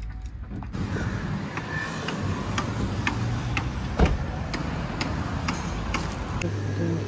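Footsteps on brick paving, about two a second, over a steady hum of street traffic, with one louder knock about four seconds in.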